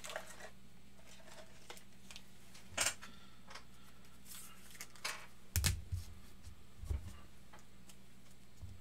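Quiet room tone with a steady low hum and a few faint scattered clicks and soft knocks. Two of the knocks, a little past the middle, carry a low thump.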